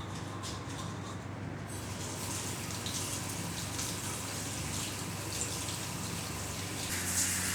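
Water running from a tap into a sink, starting about two seconds in and getting stronger near the end, over a low steady hum.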